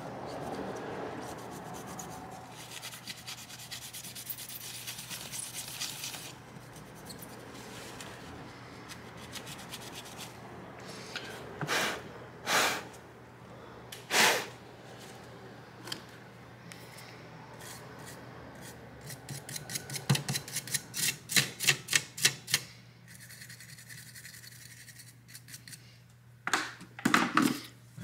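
A tissue rubbing stubborn, very dry old thermal paste off a graphics card's GPU die. The rubbing is steady at first; later come a few louder short strokes, then a quick run of them, about four a second.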